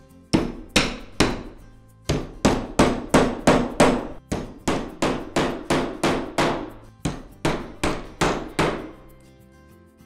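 Claw hammer driving nails into the wooden roof pieces of a bird-feeder frame: three blows, a short pause, then a steady run of about two dozen quick strikes, about three a second, that stops about a second before the end.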